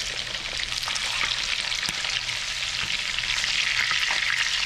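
Mahi-mahi fillets sizzling in a skillet of melted butter and vegetable oil: a steady crackle of frying, dense with tiny pops.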